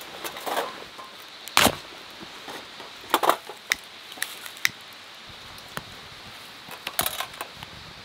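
Split firewood knocking against other pieces of wood and against a metal fire pit as it is stacked: a scatter of sharp knocks, the loudest about one and a half seconds in, a cluster around three to four seconds, and more near the end.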